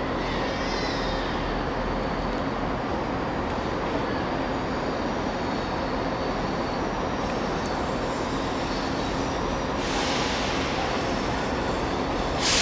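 TransPennine Express Class 68 diesel locomotive running slowly into the platform, its engine giving a steady rumble and hum. A hiss comes in near the end and grows louder.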